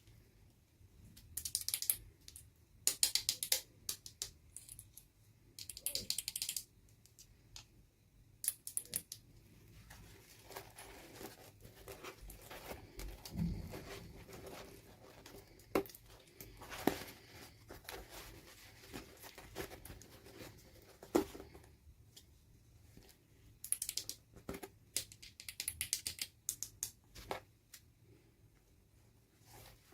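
Toy packaging being handled and opened: bursts of fine, rapid crinkling and crackling with scattered small clicks and taps between them.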